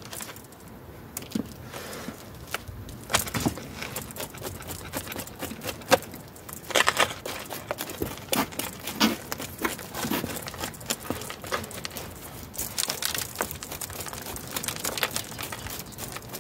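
Root hook raking and scratching through the dry potting soil of a bonsai root ball, an irregular crackling rustle with scattered short scrapes and clicks as the soil crumbles away.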